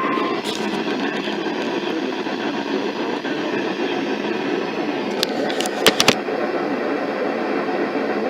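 NOAA Weather Radio receiver hissing with static from weak reception just after its steady 1050 Hz warning alert tone cuts off, at the very start. A few sharp clicks come a little after five seconds in.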